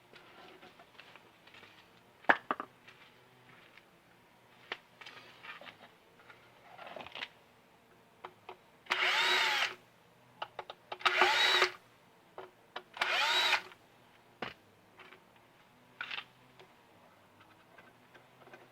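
Cordless drill-driver run in three bursts of about a second each, its motor whine rising as it spins up each time, while the drainage pump's housing screws are taken out. Scattered clicks and knocks of handling come between the bursts.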